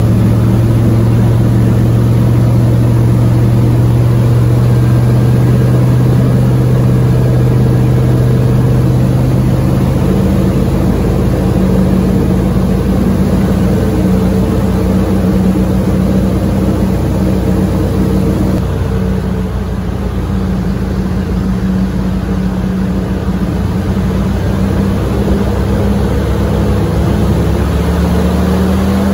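Airboat's engine and air propeller running loud and steady under way, the pitch of its drone shifting a few times and rising near the end.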